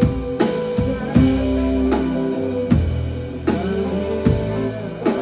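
A live band playing: held electric guitar notes struck in a slow pattern over drums.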